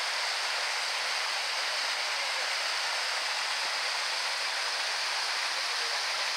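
Small river flowing steadily, a constant even rush of running water.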